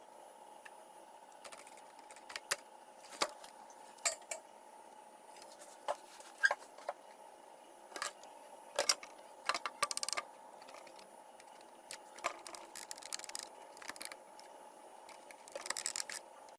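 Small hard objects handled on a work surface: scattered sharp clicks and light metallic clinks, with a quick rattle about ten seconds in and another near the end, over a steady faint hum.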